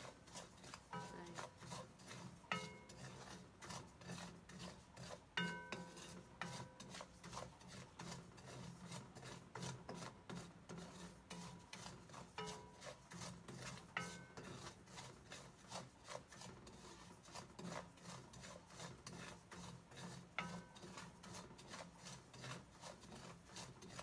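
A wooden spatula stirs and scrapes coarse salt around a stainless steel pan as the salt is dry-roasted, a continuous gritty scraping. Now and then the pan rings briefly when the spatula knocks it.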